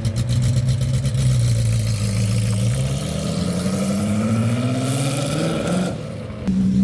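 Racing car engine at full throttle, its pitch climbing steadily as it accelerates. It cuts off sharply about six seconds in, and a loud engine note returns just before the end.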